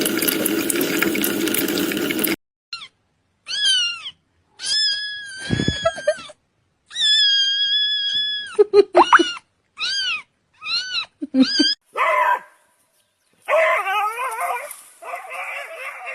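A steady rushing noise cuts off about two seconds in. Then a cat meows repeatedly in high, arching calls, mostly short, one held about a second and a half.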